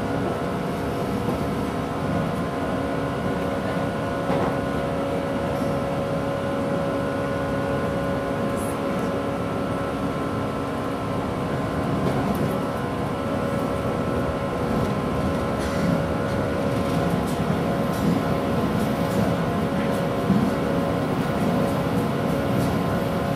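Interior running noise of a JNR 169 series electric train at speed: steady rumbling of wheels on rail under a hum of several even tones from the traction motors and gearing. A few sharp clicks and knocks come in the second half.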